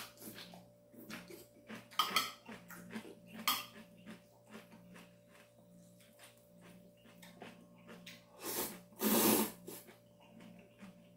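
Eating sounds of instant ramen with minari: metal chopsticks clicking against a ceramic bowl, chewing, and slurping of noodles, with a long loud slurp about nine seconds in.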